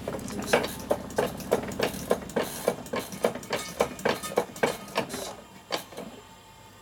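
Hydraulic shop press pumping with a steady rhythm of about three clicks a second over a low hum as its ram comes down to press a bushing into a cam cover. The pumping stops about five seconds in, with a last click or two after.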